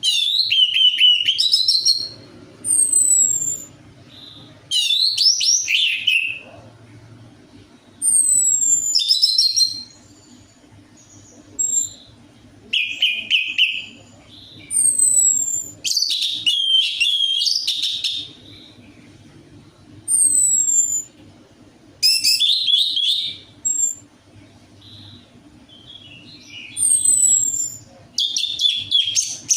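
Orange-headed thrush (anis merah) singing: varied song phrases of one to two seconds, alternating with thin, high, falling whistles, repeating every few seconds over a faint low hum.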